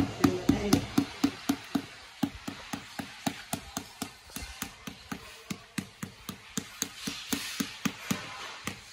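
Rubber mallet tapping a ceramic floor tile to bed it into the mortar: a steady run of short knocks, about four a second, loudest in the first second.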